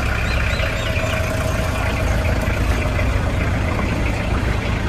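Safari jeep's engine idling steadily with the vehicle stopped.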